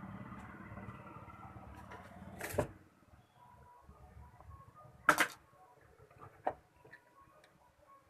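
Electronics bench work while desoldering a coil from a TV power supply board: a low hum that stops with a sharp snap about two and a half seconds in, then two more sharp snaps, the loudest about five seconds in.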